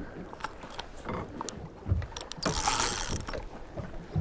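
Fishing rod and reel being handled: irregular mechanical clicks and knocks, with a short rushing noise a little past halfway.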